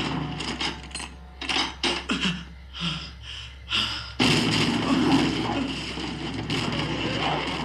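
TV drama soundtrack played back through the room: a few short sharp sounds, then about four seconds in a sudden loud blast that carries on as a dense rushing noise, an on-screen explosion and fire.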